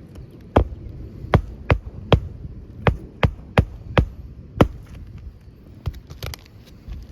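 A hammer driving roofing nails into a new asphalt shingle: about nine sharp strikes in quick, uneven succession, then a few lighter taps near the end.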